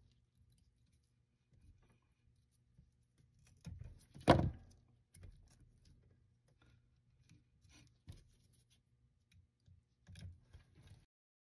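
Pliers working the stripped end of a push cable: scattered small clicks and light knocks of metal jaws and handling, with one louder knock about four seconds in. The sound cuts off just before the end.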